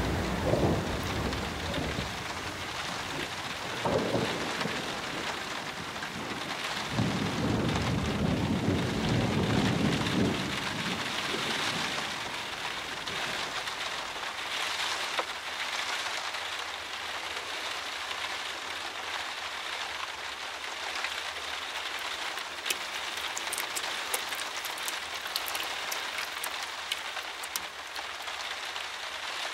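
Steady rain, with rumbles of thunder during the first ten seconds or so, then rain alone, with sharper drips pattering near the end.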